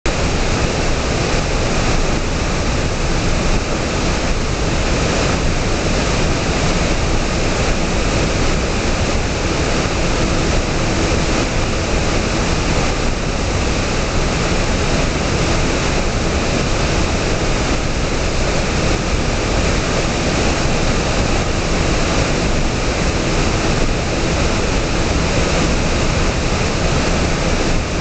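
Waterfall pouring over a rock ledge into a pool: a steady, loud rush of falling water with no let-up.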